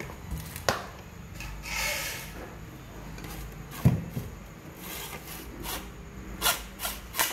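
A hand rubbing and sliding along a fiberglass telescopic landing-net handle, with a few sharp knocks and clicks as it is handled. The loudest is a dull knock about four seconds in.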